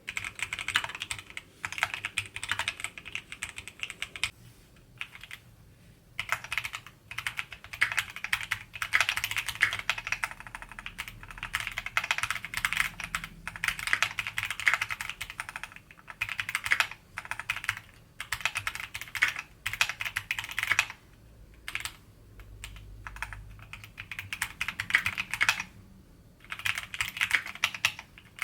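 Typing on a Keychron Q60 aluminium mechanical keyboard: stretches of fast keystrokes broken by short pauses of about a second.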